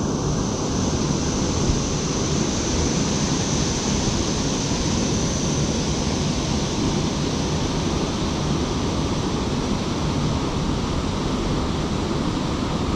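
Small creek waterfall pouring into a rock pool: a steady, even rush of water.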